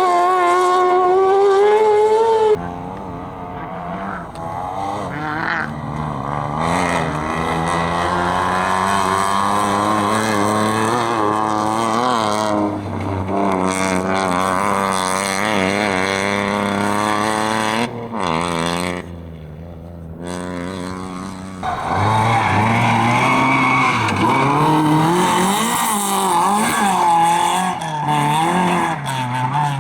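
Competition car engine revving hard and rising and falling in pitch as it is driven through a dirt slalom course, with some skidding on the loose surface. The sound changes abruptly about two and a half seconds in and again around twenty seconds in, with a short quieter stretch before it returns louder.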